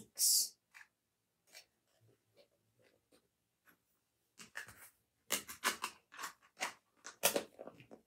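Handling sounds of fidget toys being picked up and turned over in the hands: scattered soft clicks and crinkly rustles, busier and louder in the second half.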